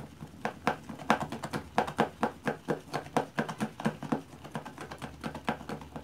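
Plastic spoon stirring fluffy slime of glue and shaving gel in a plastic bowl as liquid detergent activator is mixed in: quick, regular clicking of the spoon and slime, about four or five ticks a second.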